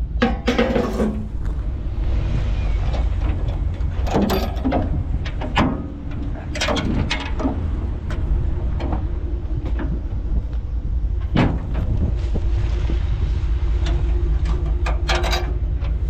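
Vehicle engine running with a steady low rumble, under several clanks and bangs of equipment being loaded onto the truck.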